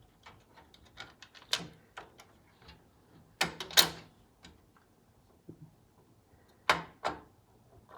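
Light metal clicks and scrapes from an Intel CPU socket being opened by hand: the retention lever is forced out of its catch and the load plate is lifted. A few louder clacks come about a second and a half in, around three and a half seconds in, and near the end.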